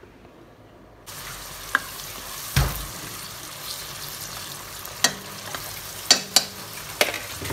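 Sliced tomatoes sautéing in oil in a nonstick pot: a steady sizzle that starts about a second in. The stirring spoon knocks and scrapes against the pot about half a dozen times.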